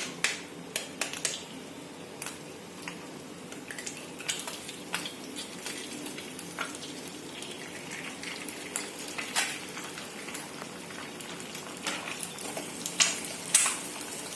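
Eggs sizzling in hot oil in a pan as they are stirred and scrambled, with frequent sharp taps and scrapes of the utensil against the pan, a few louder ones near the end.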